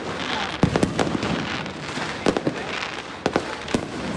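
Fireworks and firecrackers going off all around: many sharp bangs at irregular intervals over a continuous crackle.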